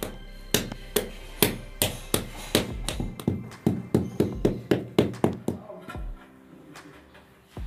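White rubber mallet tapping a freshly laid ceramic wall tile to seat it: about fifteen sharp strikes over five seconds, getting quicker, then stopping. Background music plays underneath.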